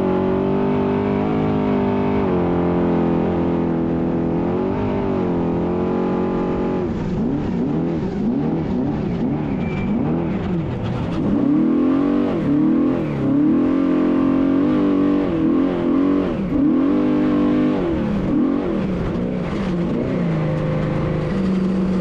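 Unlimited trophy truck's V8 engine running at high revs. It holds a fairly steady pitch for the first several seconds, then rises and falls rapidly again and again as the throttle is worked on and off.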